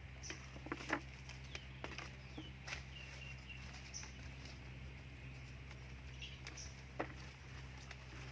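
Scattered light clicks and rustles of kusum fruit being picked up by hand, with a few short high bird chirps now and then.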